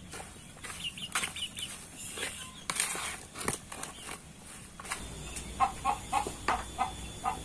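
Hands working chopped cassava leaves and grated coconut in a bowl, a rustling with a few knocks; from about five seconds in a chicken clucks in a quick run of short calls.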